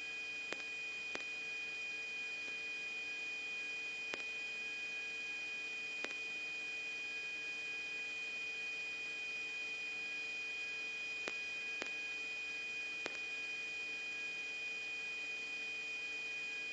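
Steady electronic hum from an open radio channel: a thin high tone and a lower tone over faint hiss, with a few faint clicks scattered through.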